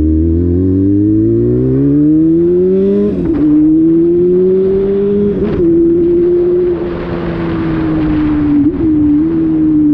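Vehicle engine accelerating hard with rising pitch, dropping sharply at gear changes about three and five and a half seconds in, with a brief dip near the end.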